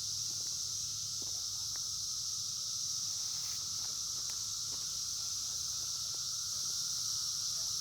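Outdoor insect chorus, a steady high-pitched trilling, with a few faint scattered ticks.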